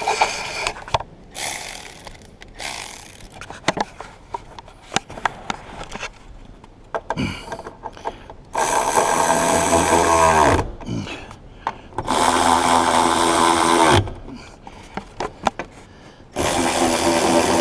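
Cordless power driver running the seat hold-down bolts in, three bursts of motor running, the first two winding down at the end. Before that, clicks and clatter of bolts and a socket being fitted.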